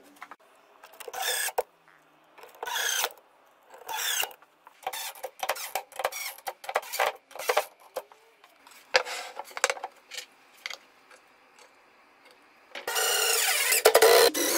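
A series of short rubbing and scraping sounds, then about thirteen seconds in a DeWalt cordless driver starts up, driving a screw.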